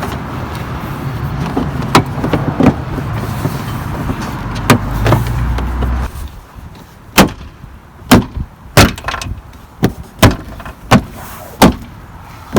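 Plastic inner trim panel of a Toyota Prius hatch being knocked back into place, with sharp knocks about once a second as its clips seat. A steady low rumble runs under the first few knocks and cuts off about halfway through.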